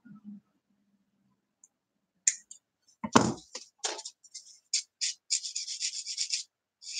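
Sanding stick rubbing a small plastic kit part in a run of quick rasping strokes near the end. Before that comes a knock on the workbench about three seconds in, along with small clicks of parts being handled.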